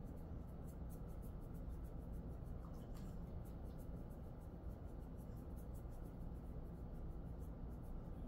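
Fingers rubbing and kneading through a Jindo dog's coat during a massage: a soft scratchy rustle repeating a few times a second, over a steady low hum.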